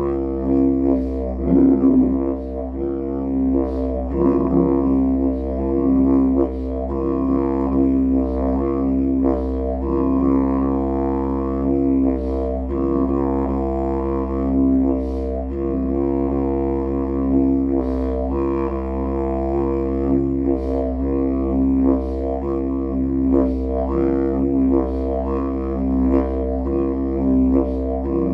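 Wild cherry wood didgeridoo played as one low drone without a break, its overtones shifting in a steady rhythmic pulse.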